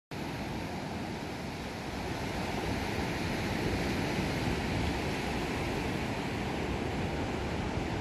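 Surf breaking on a sandy beach: a steady rush of waves washing in, with no single wave standing out.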